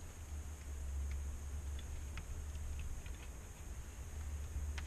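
Steady low hum with a few faint clicks and rustles of hands handling wires and tape against the metal back of an LCD panel.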